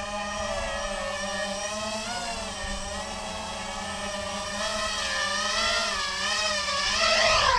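250-size FPV racing quadcopter's motors and propellers whining, the pitch wavering up and down with the throttle. It gets louder near the end as the quad comes in low and close.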